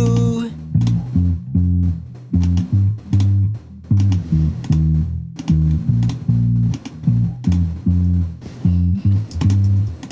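Electric bass line in a song mix playing back, short plucked notes in a steady rhythm with a brief gap about five seconds in. Faint ticks sit above it.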